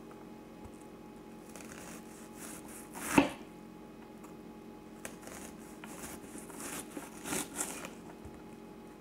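Knife work on a red onion: soft scraping and rustling, one sharp knock a little over three seconds in, and a few quieter strokes later.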